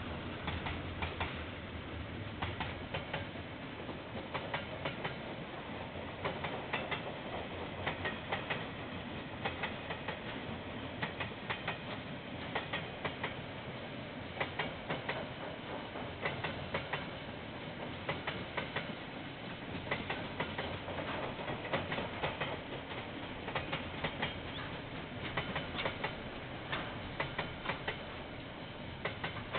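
Freight train wagons rolling past, their wheels clicking irregularly over the rail joints over a steady rolling rumble.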